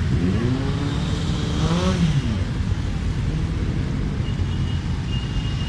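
A column of motorcycles riding past one after another, their engines running steadily. Over the first two seconds one bike's engine note rises as it accelerates, then drops away.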